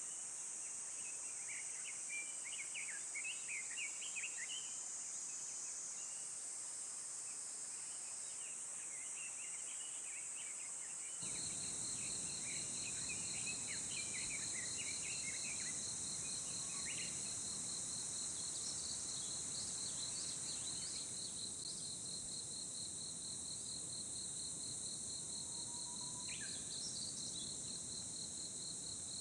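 Woodland ambience: a steady high insect chorus, with small birds chirping through the first half. About eleven seconds in, a cricket's fast, even trill and a low rushing noise begin abruptly and continue.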